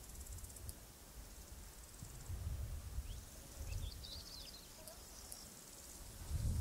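Rural outdoor ambience: a faint trilling insect, a few short bird chirps around the middle, and a low rumble underneath.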